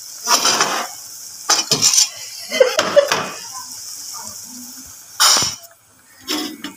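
Metal ladle stirring in a metal wok of simmering broth, with a few separate scrapes and knocks against the pan over the steady hiss and bubbling of the soup.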